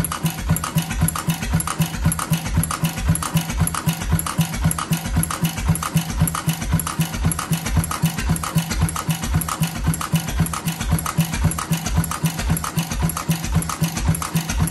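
6 hp International Mogul single-cylinder stationary gas engine running unmuffled on its first run after restoration. It gives an even, rhythmic exhaust chuff and mechanical clatter of about three beats a second.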